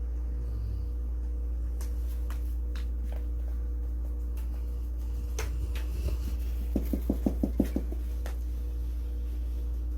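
Golden retriever snoring in its sleep: one short fluttering snore about seven seconds in, a quick run of about eight pulses, over a steady low hum and a few faint clicks.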